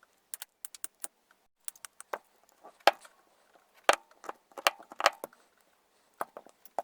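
Irregular sharp clicks and cracks of thin PLA plastic as the printing skirt is cut and broken off a 3D-printed glue-bottle nozzle. The loudest cracks come about three and four seconds in.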